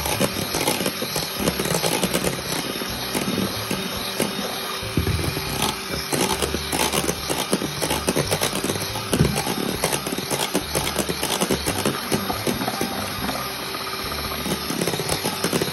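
Electric hand mixer running steadily as its twin beaters whip eggs and sugar in a stainless steel bowl, with frequent small knocks of the beaters against the bowl. The batter is being beaten to a thick, mayonnaise-like foam that holds a trail.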